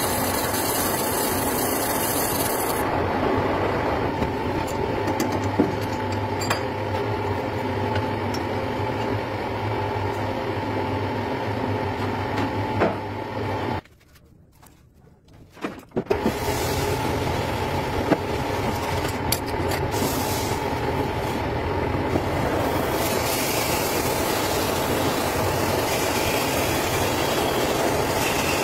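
Metal lathe running steadily, spinning a motorcycle cylinder block in its chuck while the cylinder bore is machined. It stops abruptly about halfway through, goes quiet for about two seconds, then starts up and runs again.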